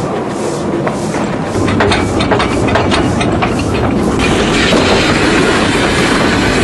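Henschel 'Fabia' narrow-gauge steam locomotive running with its train, heard from on board: a steady rumble of the running gear and wheels with a run of rail clicks midway. A steady hiss comes in about four seconds in and holds.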